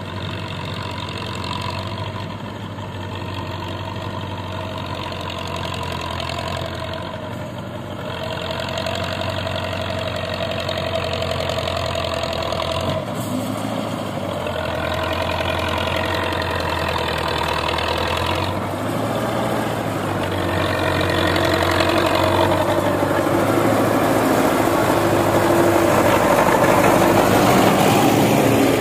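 Diesel tractor engine running as it tows a heavily loaded sugarcane trolley, getting louder as it comes close and passes. The engine note dips and picks up again a few times.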